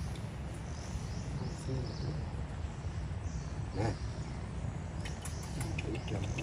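Outdoor forest ambience: a steady low rumble with faint high chirps of birds or insects, and one short pitched call about four seconds in.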